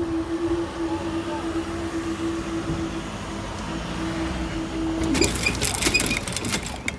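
Level crossing barrier hydraulic power unit humming steadily as the barrier booms are raised. The hum stops a little after five seconds in as the booms reach the upright, and a burst of clicks and knocks follows.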